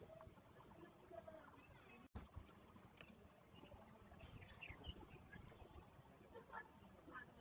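Near silence: room tone with a faint steady high-pitched whine, broken by one brief click about two seconds in.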